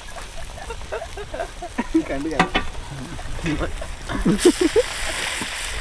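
Chip-coated parotta pieces sizzling as they go into hot oil to deep-fry. The sizzle sets in about four and a half seconds in.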